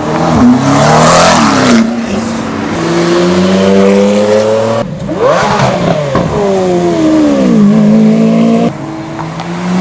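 Several high-performance cars accelerating hard past one after another, engines revving up and then dropping in pitch as each one goes by. The sound jumps abruptly from one car to the next three times.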